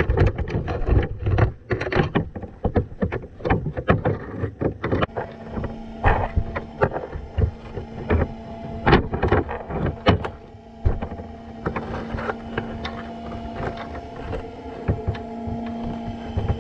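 Muffled underwater knocks and clicks picked up by a camera inside a wire crab trap as crabs and fish move about it. From about five seconds in, a steady low hum runs beneath them.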